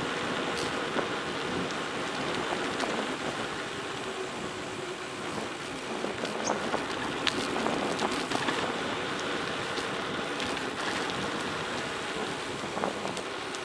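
Tyres rolling fast over a gravel forest road on a downhill ride: a steady crunching rush with scattered sharp clicks and rattles.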